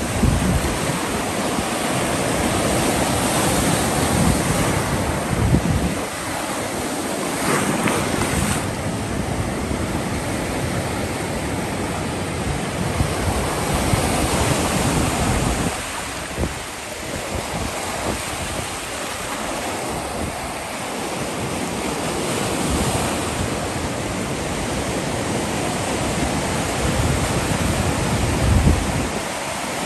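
Waves on Lake Michigan breaking and washing up the shore in a continuous rush of surf, with wind gusting on the microphone.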